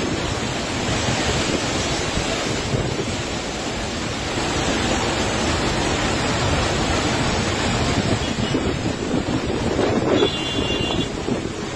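Muddy floodwater rushing down a steep hillside in a steady torrent, with wind buffeting the microphone.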